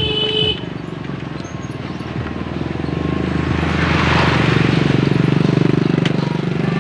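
Small motorcycle engines running, with one motorcycle passing close by about four seconds in, its sound swelling and then easing off.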